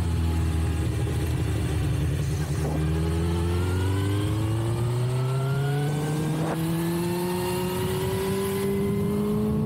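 2006 Suzuki GSX-R1000's inline-four engine through a full carbon/titanium Yoshimura exhaust, easing off briefly, then pulling steadily with its pitch rising over several seconds as the bike accelerates. Two brief cracks cut in about three and six and a half seconds in.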